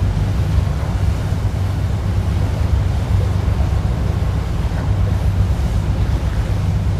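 Wind buffeting the microphone aboard a moving boat on open lake water: a steady, heavy low rumble with the wash of water along the hull.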